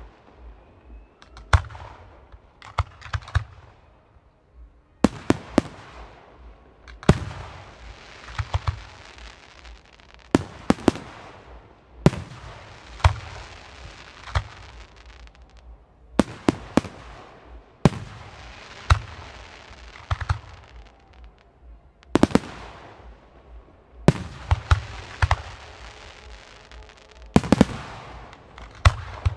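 Aerial fireworks shells bursting one after another in a display, sharp bangs often coming two or three in quick succession. Each group trails off into a hiss that dies away over a few seconds.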